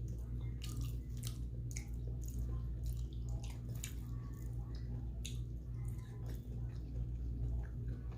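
Close-miked mouth sounds of a person chewing soft food (injera, rice and lentils), with scattered wet clicks and smacks, over a steady low hum.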